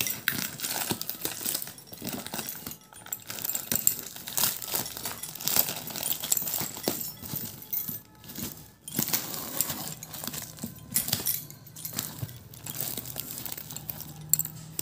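Brown plastic packing tape and cardboard of a parcel being torn and pulled open by hand: a crackling, crinkling rustle full of small sharp clicks, with brief pauses.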